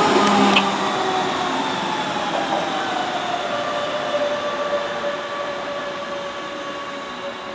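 Red DB class 425 S-Bahn electric multiple unit running away along the track. Its electric whine slides slightly lower and fades as the train draws off, with a brief high squeak about half a second in.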